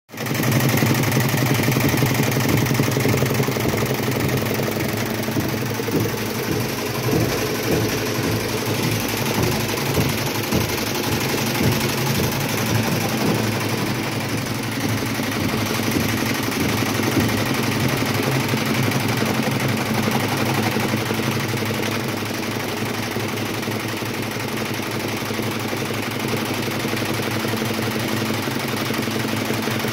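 Workshop machinery running with a steady electric hum, and an irregular rapid clatter that is busiest in the first half.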